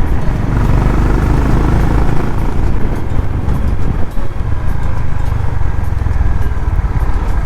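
Honda CB350RS's single-cylinder engine running under way, its exhaust note mixed with low wind rumble on the microphone; the level dips briefly about four seconds in.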